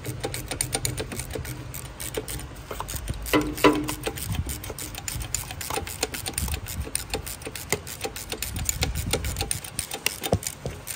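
Rapid, steady mechanical clicking over a low hum, with a few louder metallic clanks about three and a half seconds in.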